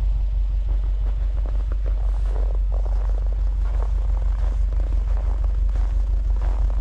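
A car engine idling: a steady low rumble with a slight regular pulse.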